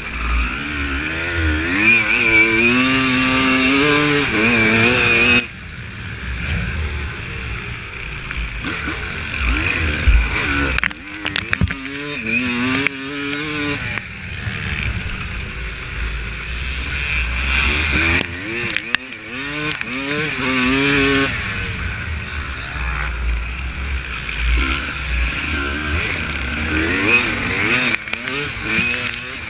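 Honda CR250 two-stroke single-cylinder motocross bike being ridden off-road. Its engine revs up and down, and the pitch climbs and then drops off abruptly about three times as the throttle is shut.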